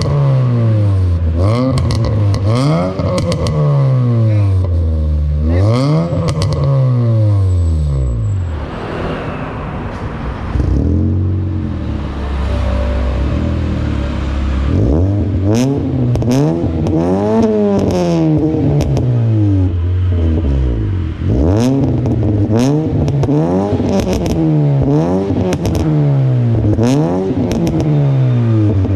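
Honda Brio's four-cylinder engine revved repeatedly through an Ironcrafts ProCircuit aftermarket muffler, its pitch rising and falling back every couple of seconds. It settles to a steady idle for a few seconds in the middle, then the revving starts again. The owner hears this muffler's tone as round rather than raspy.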